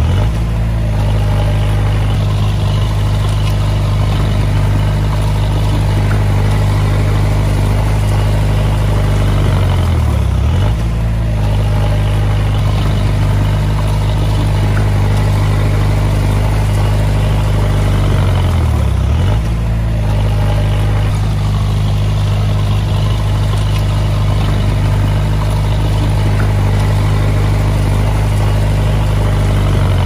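Komatsu D20A bulldozer's diesel engine running steadily, its pitch briefly sagging and recovering three times: at the start, about ten seconds in and about nineteen seconds in.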